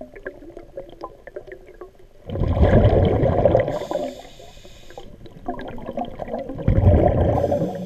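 Scuba diver's breathing heard underwater: two bursts of exhaled bubbles rumbling out through the regulator, about four seconds apart, each ending in a short hiss, with faint crackling and ticking in the water between breaths.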